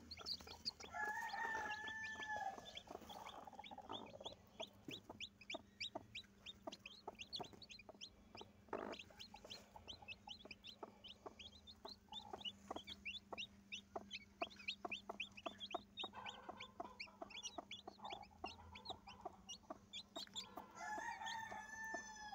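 Newly hatched chicks peeping faintly, with many short, falling peeps in quick succession. Two longer, lower calls, one near the start and one near the end, stand out among the peeps.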